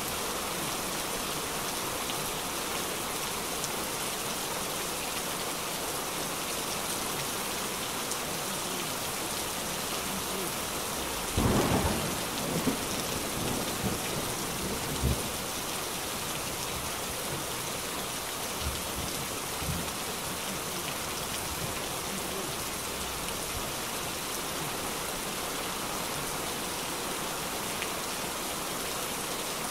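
Heavy rain falling on a street and pavement, a steady hiss. Partway through, a loud clap of thunder with a few lower rumbles that die away over about three seconds.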